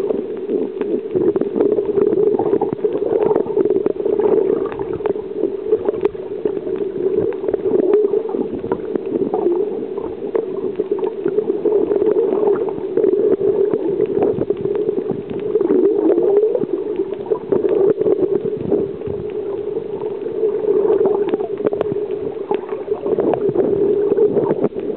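Muffled underwater ambience picked up by a camera in a waterproof housing: a steady dull drone with scattered faint clicks and crackles.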